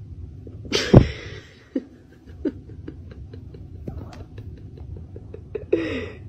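A person laughing in a long run of short, quick bursts, with a louder squeal of laughter about a second in.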